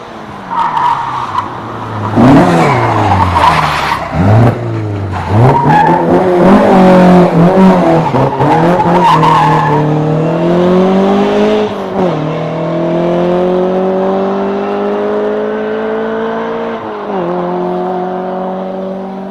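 Rally car engine revved hard, its pitch swinging quickly up and down, with tyres squealing and skidding. It then accelerates, the pitch climbing and dropping sharply at two gear changes before easing off near the end.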